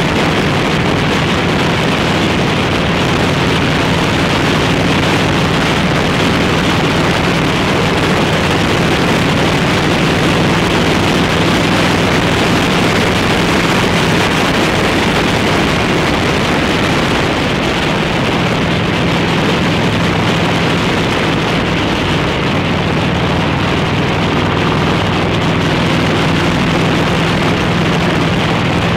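Harley-Davidson Road King's V-twin engine running steadily at cruising speed, with wind rushing over the microphone.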